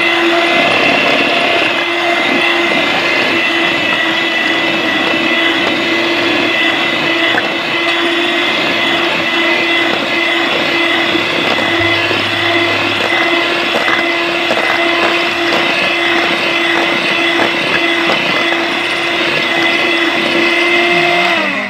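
Electric hand mixer running steadily at speed, its beaters whipping chilled cream and condensed milk in a stainless steel bowl, with an even motor whine. It is switched off at the very end, the whine falling away.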